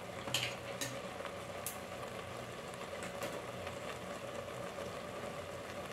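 Thick spinach-and-masala mixture frying gently in an aluminium pot over a gas flame: a soft, steady sizzle, with a few light clicks in the first two seconds.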